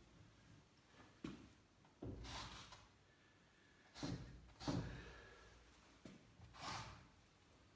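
Paintbrush strokes of oil paint on the picture surface: about five soft, short swishes spaced unevenly over quiet studio room tone.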